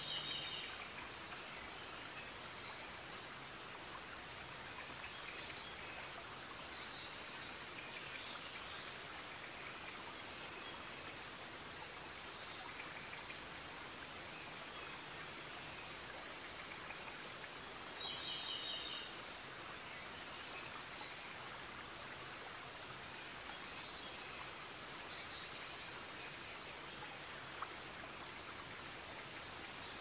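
Forest ambience: a steady even hiss with songbirds calling every second or two. The calls are short sharp chirps, with a few rapid trills among them.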